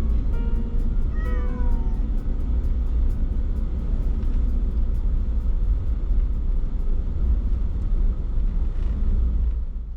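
A cat meows once about a second in, a short call falling in pitch, over the steady low rumble of a Toyota HiAce van on the move, heard from inside the cabin.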